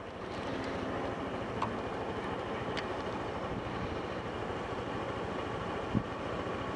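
Motorcycle engine running steadily while the bike is ridden along a road, with road and wind noise mixed in; a single short knock about six seconds in.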